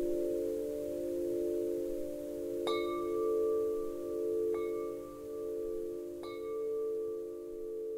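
Wind chimes ringing, several low tones hanging on throughout, with three fresh strikes about three, four and a half and six seconds in, each adding a higher ringing note.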